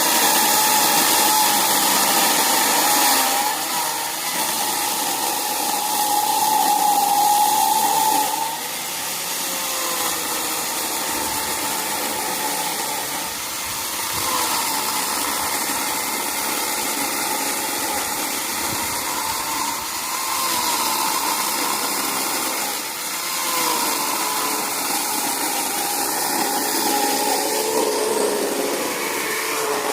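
Power tool motor running steadily while cutting tree roots, its pitch dipping and rising as the load changes.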